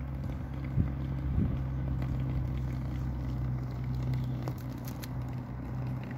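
A steady low hum, like a running engine, with two short thumps about one and one-and-a-half seconds in.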